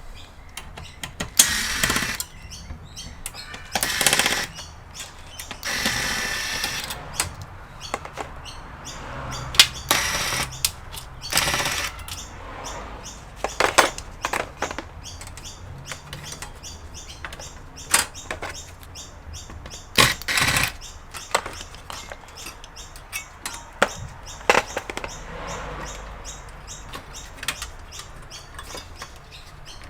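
Irregular clicks, taps and knocks, with a few short scraping stretches, from hands and tools working on an Asus ET2321 all-in-one computer's casing and parts during disassembly.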